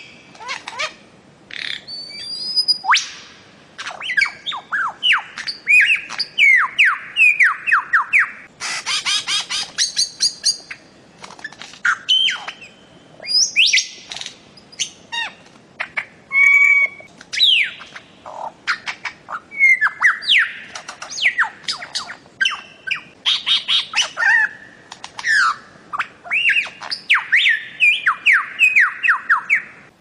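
Bird-of-paradise calling: quick runs of loud, falling whistled notes, mixed with harsh squawks and sharp clicks.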